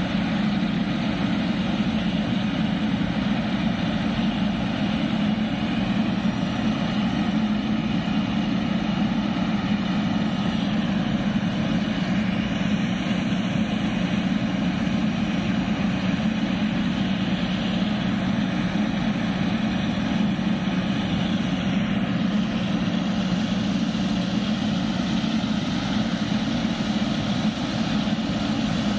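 Boeing 777-300ER's GE90 turbofan engines running steadily at low power, as while taxiing: a constant low rumble with a rushing hiss above it.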